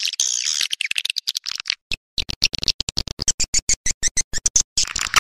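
Swiftlet call-sound lure recording: high twittering chirps, then a fast, even train of clicks about ten a second, breaking into dense twittering again near the end.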